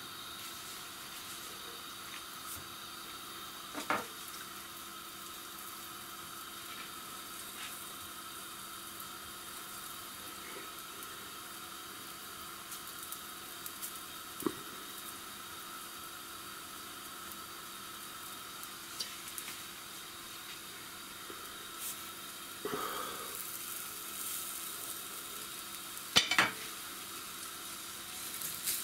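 Low steady sizzle of semolina dough patties (harsha) cooking in a frying pan. It is broken by a few short knocks of a plastic press and silicone shaping ring against the pan; the loudest comes near the end.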